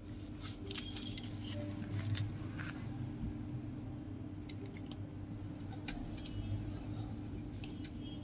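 An iPhone 14 Pro being handled and turned over on a repair bench: scattered light clicks and taps of its glass and metal frame against fingers and the mat, over a steady low hum.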